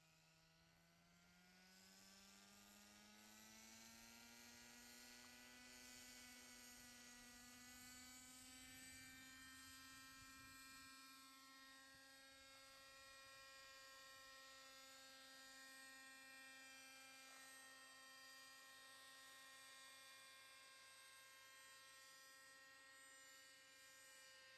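Radio-controlled model helicopter's motor and rotor whine, rising in pitch over the first several seconds as the rotor spools up for lift-off, then holding a steady tone as it hovers and flies.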